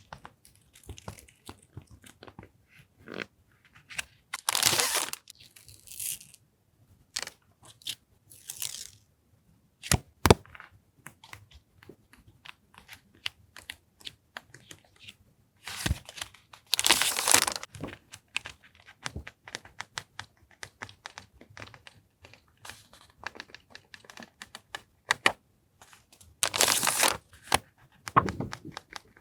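Paper and plastic stationery packaging being handled: scattered light taps and rustles, with three longer crinkling, tearing swishes about 5, 17 and 27 seconds in.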